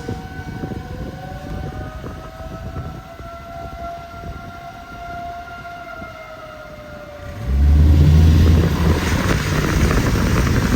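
Outdoor tornado warning siren wailing, its pitch slowly rising and falling. About seven seconds in, a much louder low rumbling noise comes in and drowns it out.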